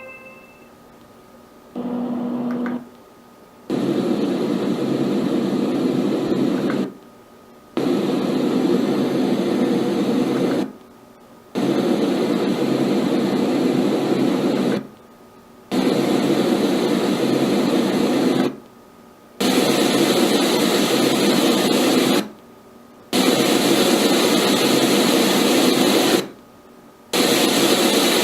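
LATME white noise machine playing its noise sounds one after another: a short quieter sound about two seconds in, then a run of steady hiss sounds, each about three seconds long, cut by brief silences as the machine is switched to the next sound.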